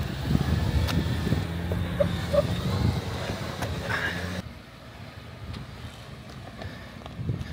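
Jeep engine running at low speed over rough ground, with a rumble and a few scattered knocks. A little over halfway through the sound drops suddenly to a quieter, steady engine hum.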